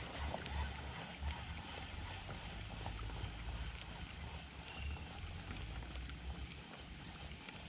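Wind buffeting the microphone as a low, uneven rumble, with faint small ticks and water noise around a fishing kayak.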